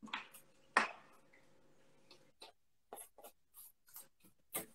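A fork and a wooden spoon scraping and tapping against an earthenware dish while stirring a thick cod and potato mixture. The sound is a string of short, irregular scrapes and clicks, with a sharper clack about a second in.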